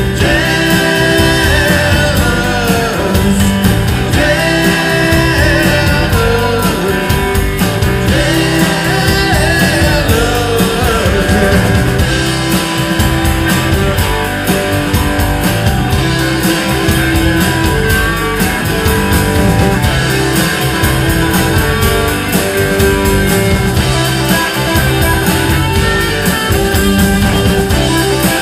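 Live rock band playing, with electric guitars over drums and bass, and a singer.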